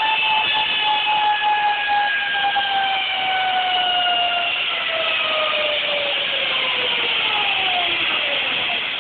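Zip line trolley pulleys running along the steel cable as a rider comes in: a whining hum that falls steadily in pitch as the trolley slows, over a rushing hiss.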